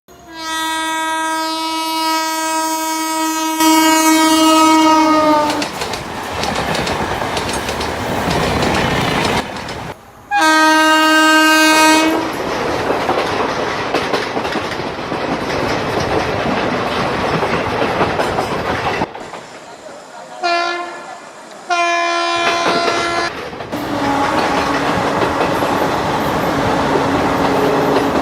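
Locomotive horn: one long blast of about five seconds that sags in pitch as it ends, a short blast about ten seconds in, and two short blasts later on. In between is the steady rolling rumble and rail clatter of a passing train.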